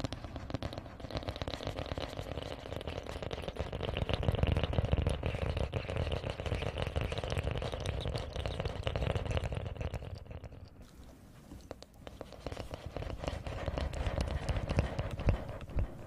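Hands rubbing and fluttering close to a pair of microphones: a dense, crackly rustle of fine clicks that dies away about two thirds of the way through, then comes back before stopping near the end.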